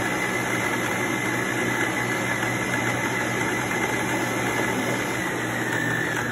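Electric stand mixer running steadily with a high motor whine, its paddle beater creaming butter in a steel bowl. The mixer is switched off at the end and the sound stops abruptly.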